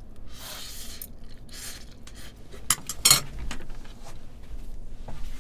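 Ramen noodles slurped from a bowl, then chopsticks and utensils clinking and scraping against a ceramic bowl, with a couple of sharper clinks about three seconds in.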